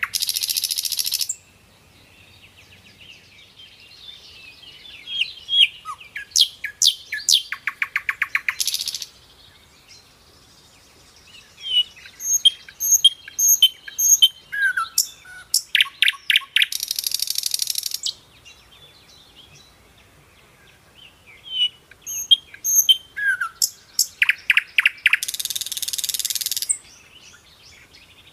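Birds chirping and calling in bouts that repeat about every eight to nine seconds, each bout of sharp chirps and whistles ending in a loud, harsh rasping call lasting over a second, with quieter chirping between the bouts.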